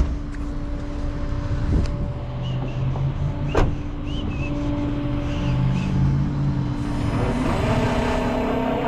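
Rollback tow truck running with a steady hum while its winch lets a vehicle off the bed, with a few sharp clanks. Near the end the pitch climbs as the engine speeds up.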